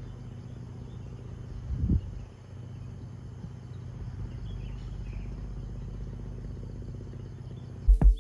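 Outdoor ambience: a steady low hum with faint insects chirping, and a brief low rumble about two seconds in.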